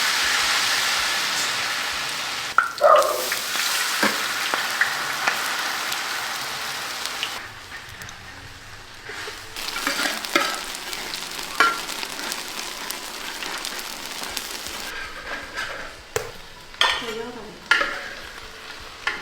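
Eggplant fritters frying in hot oil in a pan: a steady sizzle, loud for about the first seven seconds and then softer, with occasional short clinks of a utensil against the pan.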